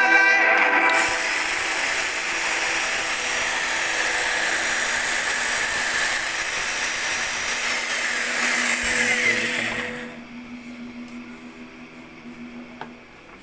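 Electric power tool motor running steadily at speed for about nine seconds, then switched off and dying away within a second, followed by a few light clicks.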